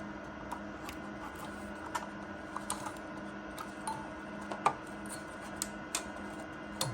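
Scattered light clicks and taps as a CPU cooler is flipped over and lined up on a motherboard's mounting holes, a couple of sharper knocks near the end, over a steady low hum.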